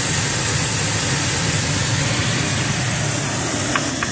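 Steam blower ring of a wood-fired fire-tube boiler running: a steady, loud rush of steam with a low rumble, forcing a strong draft through the fire.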